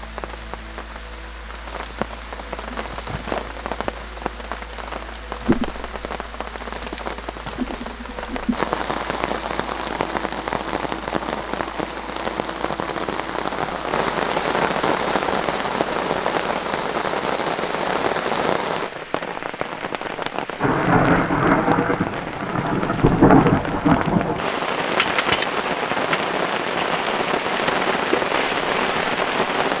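Heavy rain pouring down, growing heavier as it goes, with a low rumble of thunder about two-thirds of the way through.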